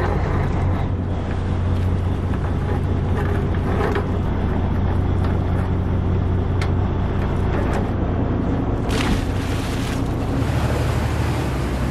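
Fishing boat's inboard engine running steadily: a low drone whose pitch shifts slightly near the end, with a few light knocks and a brief rush of splashing noise about nine seconds in.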